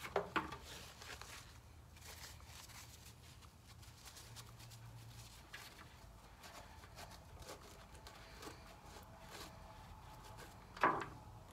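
Faint handling noises: a paper towel rustling and fingers rubbing and tapping on a thin fiberglass cowl while excess epoxy is wiped from the glued blocks inside. There are a couple of sharp ticks right at the start and one short louder sound near the end.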